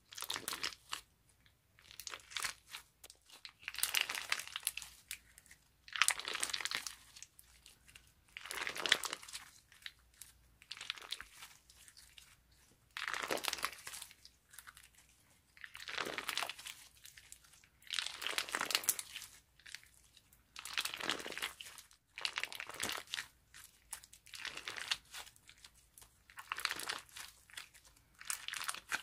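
Clear slime packed with pearl beads being squeezed and pressed by hand, giving crunchy crackles in short repeated bursts every one to two seconds.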